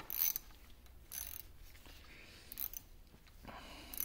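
A small-drive mini socket wrench ratcheting in four short bursts of clicking as a hex set screw is backed out of a cast-iron lathe apron.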